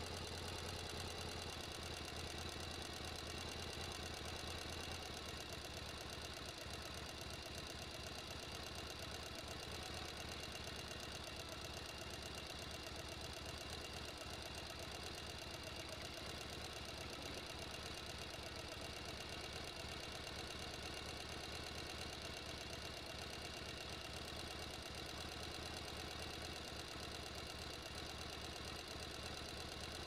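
Small electric motor of a homemade toy concrete mixer running steadily as it turns the drum, with a high whine over a fast, fine rattle.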